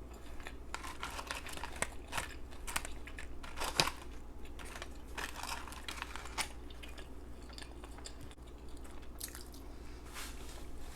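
A person chewing a mouthful of hamburger close to the microphone: irregular wet smacks and crunches, busiest in the first six seconds, with a louder click near four seconds.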